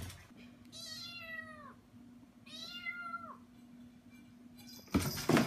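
A kitten meowing twice: two drawn-out meows, each about a second long, that drop in pitch at the end, over a faint steady hum. A loud sudden noise comes near the end.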